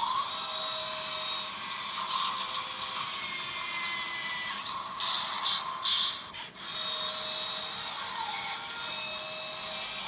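Small electric gear motor of a remote-control toy CAT skid steer loader whirring as the loader arm raises the bucket, then whirring again as it lowers it. In between, about five seconds in, there is a short pause with a few clicks.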